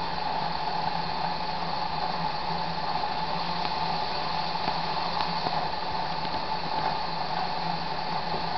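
Steady hum and fizzing of a running HHO (oxyhydrogen) generator rig: an alternator powering the dry cell at about 50 amps while the gas bubbles through a water bubbler jug and streams out of the discharge line.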